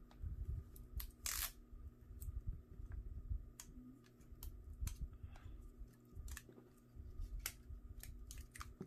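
Protective plastic film being peeled off a new laptop's edge. Scattered small clicks and crackles, a short ripping hiss about a second and a half in, and low handling bumps.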